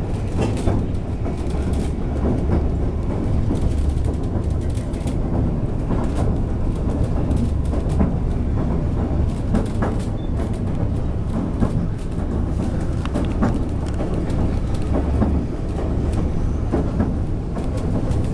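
Passenger railcar rolling steadily along the track, a continuous low rumble with scattered faint clicks and rattles from the wheels and car body.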